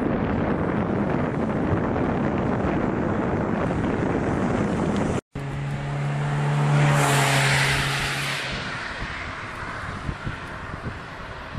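Wind rushing over the microphone while riding. After a brief dropout about five seconds in, a car's engine hum and tyre noise swell and then fade as it passes.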